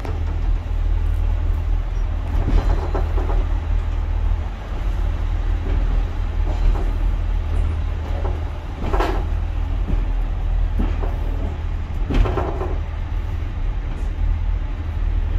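Pacer diesel railbus running, a steady low engine drone with a few short knocks and clunks from the train every few seconds.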